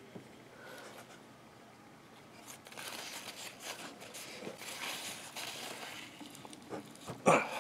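Light handling noises as transmission gears and bearings are worked by hand into an aluminium gearbox case: a few seconds of soft rustling and scraping, then one short, sharper knock near the end.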